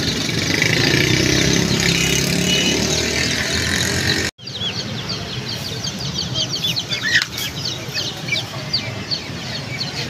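Bird-market din: a steady rumble of traffic and crowd noise that cuts off about four seconds in. After it comes a dense chatter of many quick, high chirps from caged birds, with one louder call about seven seconds in.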